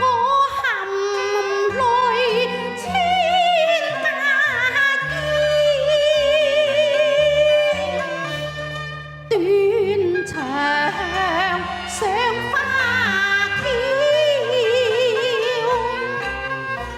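Cantonese opera music: a wavering melody with heavy vibrato over lower sustained accompaniment, breaking off briefly about nine seconds in before going on.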